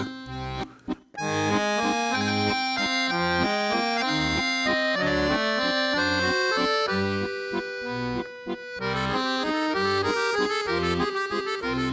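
Accordion music, starting about a second in: a reedy melody of held notes over a steady alternating bass-and-chord accompaniment.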